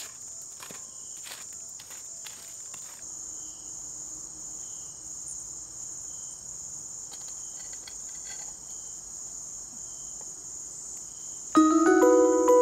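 Crickets trilling steadily, with a few sharp crackles and knocks from a wood fire in the first few seconds. About a second before the end, loud background music with ringing pitched notes cuts in.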